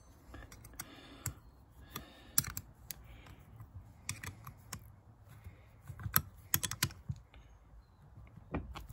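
Ratchet and combination spanner working the pivot nut of a motorcycle front brake lever: irregular sharp clicks and metal taps, bunched more densely past the middle.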